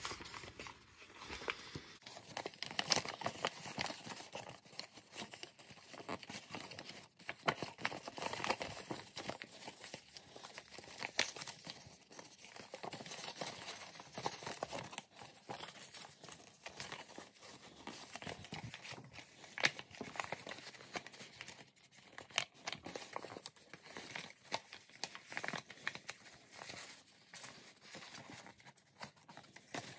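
Sheet of letter-size paper crinkling and rustling in the hands, with irregular sharp crackles as its pre-creased folds are crimped and squeezed flat.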